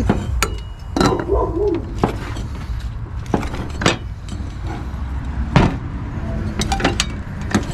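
Irregular sharp knocks and clatter of kitchen utensils on a hard surface, over a low steady hum.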